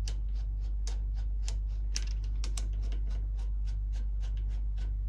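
Light, irregular clicks and ticks, several a second, as an M6 machine screw and washer are turned by hand out of the brass insert of a rubber well nut, over a steady low hum.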